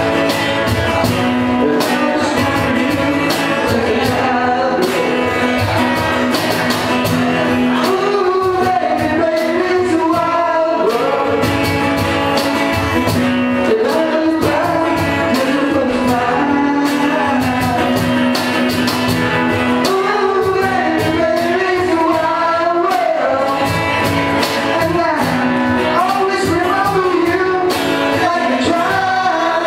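Live rock band playing a song: a male voice singing over electric guitar and drums, with a steady beat and a large-room echo.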